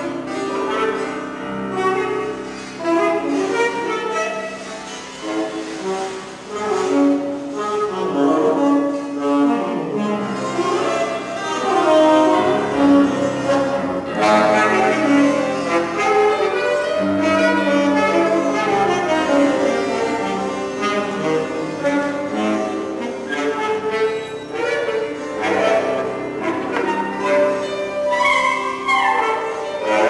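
Chamber music on bowed string instruments, sustained lower notes held under busy higher melodic lines.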